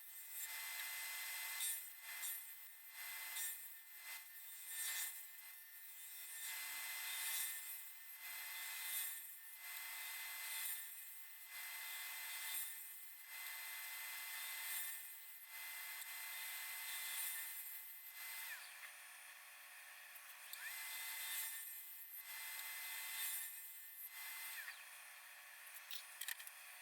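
KS Twister FU-180 wood lathe running while the spinning wood is worked, the cutting noise swelling and fading every second or two. A steady high whine sounds over it and drops out for a couple of seconds past the middle.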